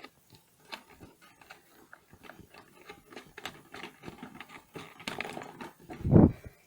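Desk fan parts being handled during disassembly: scattered light clicks and knocks, growing busier later on, with a louder bump about six seconds in.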